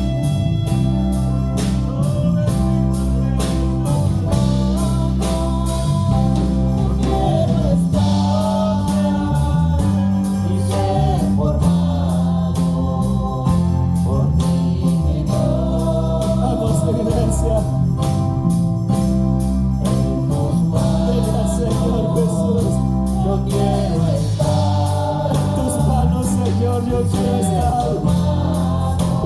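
Live gospel worship music: a band plays sustained chords over a steady beat, with voices singing along.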